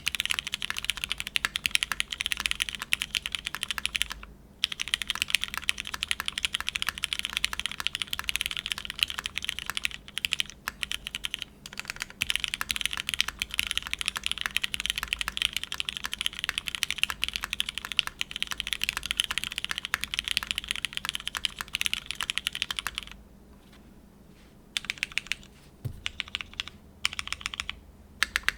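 Fast, continuous typing on a custom mechanical keyboard with lubed Cherry MX Black linear switches in an aluminium plate, under GMK keycaps. The typing has a brief pause about four seconds in and a longer lull near the end, then resumes in shorter runs of keystrokes.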